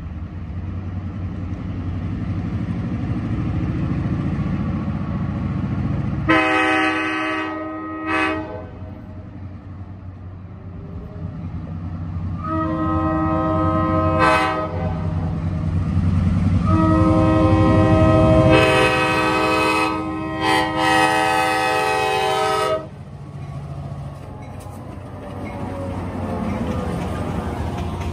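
Diesel passenger train's multi-note air horn sounding for the grade crossing: a long blast, a short one, another long blast and a final blast held about six seconds, over the rising rumble of the approaching train. After the horn stops, the train's cars rumble past close by.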